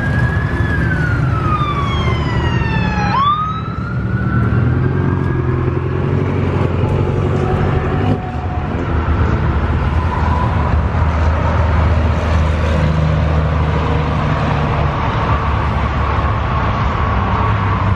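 A BMW coupe pulling away with its engine running and its tyres squealing. The squeal slides down in pitch over the first three seconds, then jumps sharply back up. After that a fainter, steady squeal rides over the engine's low note.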